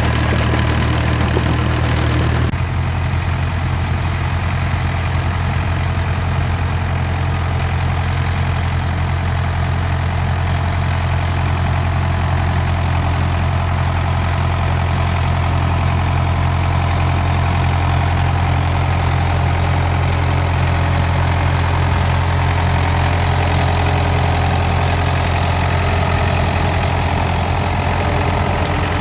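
Vintage David Brown tractor engines running steadily under load while working the ground with a plough. The engine note changes abruptly about two and a half seconds in.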